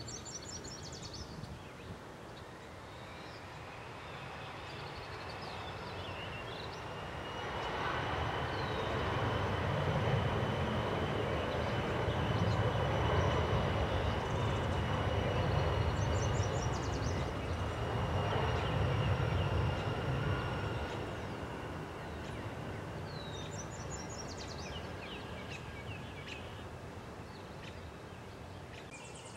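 Jet airliner passing, its engine noise swelling over several seconds, staying loud for about ten seconds, then fading away, with a steady high whine running through it.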